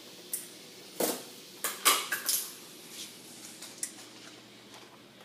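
Kitchen clatter: about six sharp clinks and knocks of utensils and containers being handled, the loudest a little under two seconds in.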